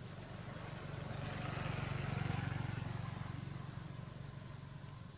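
A motorcycle engine passing by, growing louder to a peak about two seconds in and then slowly fading.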